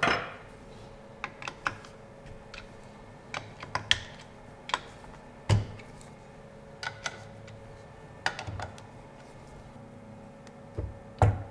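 Sharp clicks and light metallic clinks, a dozen or so at uneven intervals, some ringing briefly. They come from a hex key and hand tools being handled at a CNC router's spindle head as its mount is loosened for shimming.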